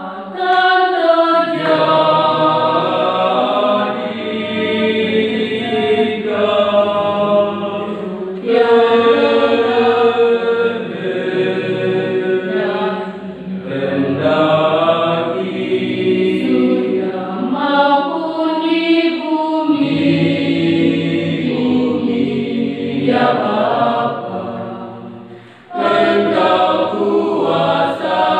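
Mixed youth church choir of girls and young men singing a sacred song unaccompanied, phrase by phrase, with a brief break near the end before the next phrase.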